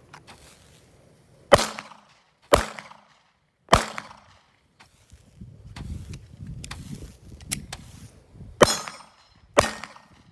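Five sharp bangs from a 9mm Glock 43 pistol being fired and Roman candles going off: three in the first four seconds and two near the end. In between comes a rushing fizz from a Roman candle's burning ball.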